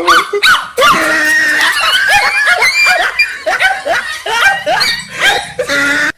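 Shrill screaming and cries mixed with laughter, several high-pitched voices overlapping, cutting off abruptly at the end.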